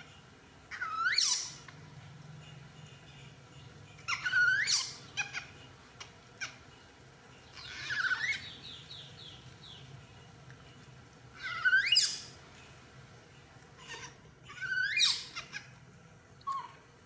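Infant monkey squealing while it is washed by hand: five short, shrill calls a few seconds apart, each sweeping sharply upward in pitch.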